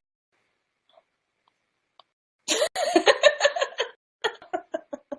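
Near silence, then from about halfway in a woman laughing in quick, even bursts that break into shorter pulses near the end.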